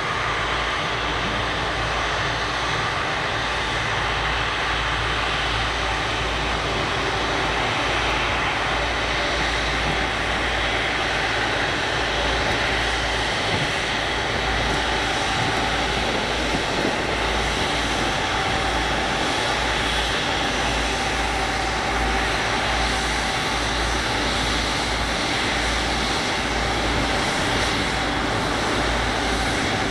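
Jet engines of a Boeing 777-300 running at low taxi power as the airliner rolls along the taxiway: a steady whine over an even rush of engine noise.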